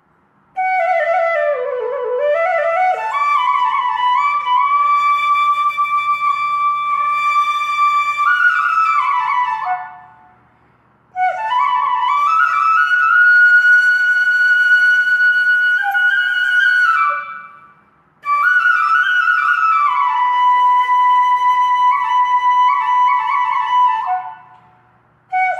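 Background music: a solo flute playing three long, slow melodic phrases with sliding pitch bends, separated by short pauses.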